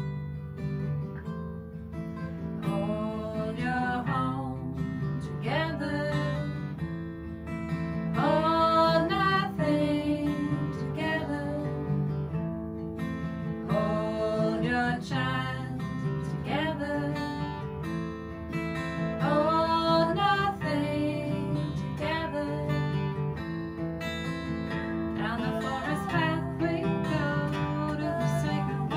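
Two acoustic guitars strummed and picked together, with a woman's voice singing long notes that slide up into pitch over them.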